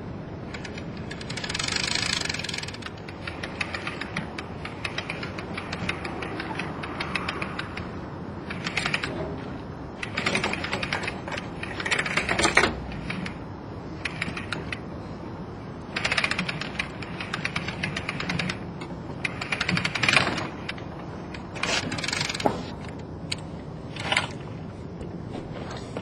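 Capital Safety R250 rescue and descent device on a tripod, running rope through it in repeated bursts of fast mechanical clicking, each lasting one to three seconds, as a worker is lowered on the line.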